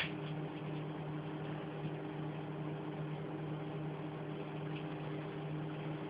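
Microwave oven running with a compact disc inside: a steady electrical hum over the fan's hiss, with one faint tick about two seconds in.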